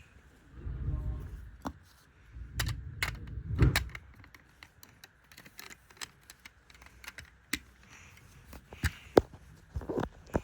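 LEGO pieces being handled and pressed together: scattered sharp plastic clicks throughout, with heavier low bumps and rattling during the first four seconds.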